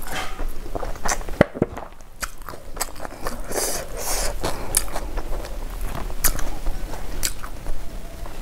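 A person chewing a mouthful of rice and fish curry, with crunches and sharp mouth clicks now and then.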